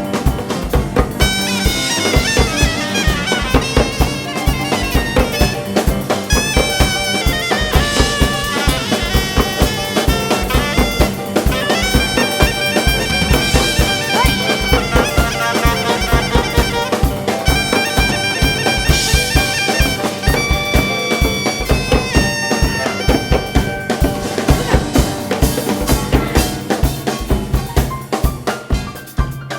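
Live Korean traditional (gugak) ensemble music: a sustained wind-instrument melody with wavering pitch over a steady drum beat.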